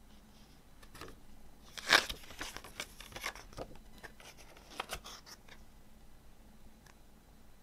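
Pages of a paper CD booklet being turned by hand: dry rustles and flicks of paper, loudest about two seconds in, with another cluster of flicks near five seconds.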